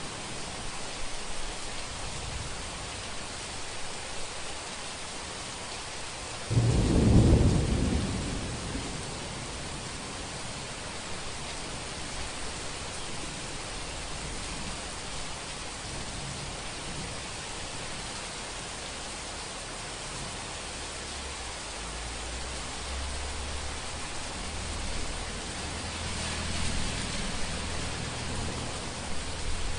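Heavy rain falling steadily, with a sudden loud crack of thunder about a quarter of the way in that dies away over a couple of seconds. Low rolling thunder rumbles again near the end.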